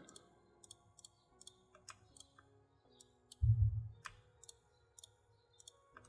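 Computer mouse clicks, about a dozen short sharp clicks scattered unevenly, over faint background music. A short low rumble comes about three and a half seconds in.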